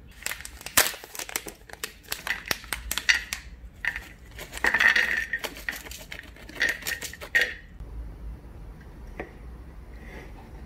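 A plastic snack packet of mixed nuts crinkling as it is opened, then nuts and raisins pouring out and clattering onto an enamelware plate in a quick run of sharp clicks, which stops about three-quarters of the way in.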